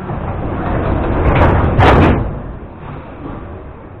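Metro car's sliding doors closing: a rising rumble, then a sharp burst and a louder bang a little under two seconds in, after which the car settles to a steadier lower noise.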